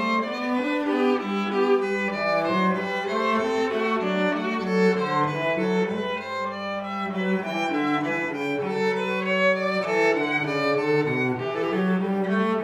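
Background instrumental music: a melody of many short, changing notes over a lower line.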